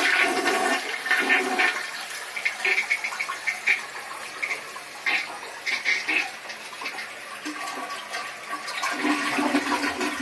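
A toilet flushing: water rushing and swirling down the bowl, loudest in the first couple of seconds and then easing off.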